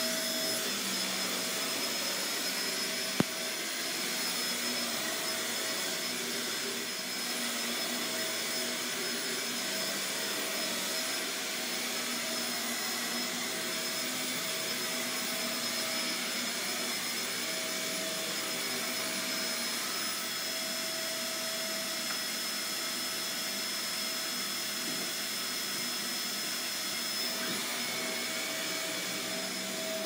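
Shark Navigator Swivel upright vacuum cleaner running steadily as it cleans carpet, with a single sharp click about three seconds in.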